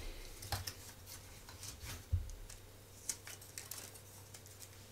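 Scattered light clicks and taps of thin laser-cut basswood puzzle pieces being pushed out of their sheet and handled.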